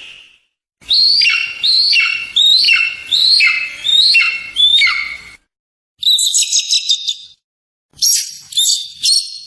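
Eagle calling: a quick run of about eight calls, each sliding down in pitch, then after a short pause a high rapid chattering trill and a few shorter calls near the end.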